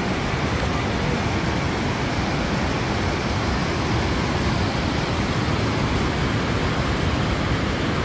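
Steady rushing of a wide waterfall cascading over rock ledges, a loud, unbroken wash of water noise.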